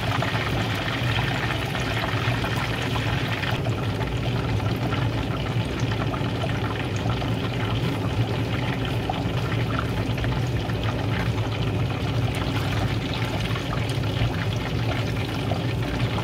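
Chicken deep-frying in a pot of hot oil: a steady, dense sizzle and crackle of bubbling oil, easing slightly a few seconds in. A low steady hum runs underneath.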